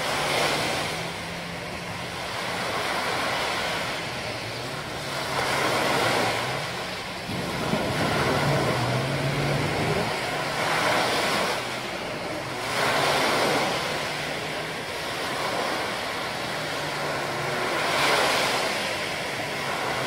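Small waves breaking and washing up on a sandy beach in swells every few seconds. Underneath is a low, steady motor hum from boats or jet skis out on the water.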